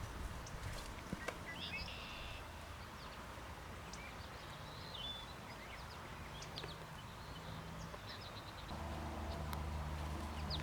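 Beaver gnawing and chewing willow, a few sharp crunching clicks, while small birds chirp here and there. A low steady hum comes in near the end.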